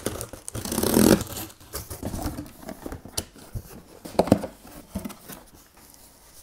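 A box cutter slitting the packing tape on a cardboard box, loudest as a long tearing rip about a second in. It is followed by clicks and rustling as the cardboard flaps are pulled open and the contents are lifted out.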